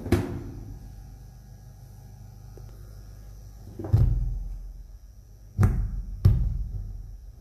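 Car stereo head unit being handled: four sharp knocks with booming low tails, one at the start, one about four seconds in and two close together near six seconds. Under them runs a steady low hum from the amplified car speakers.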